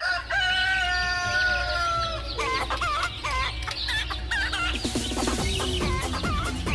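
A rooster crows once, a long call of about two seconds, then short repeated wavering bird calls follow, all over electronic music with a steady low bass and a beat.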